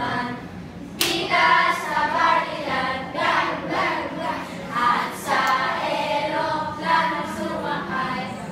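A group of children singing a Tagalog song together, with a sharp hit, like a clap, about a second in.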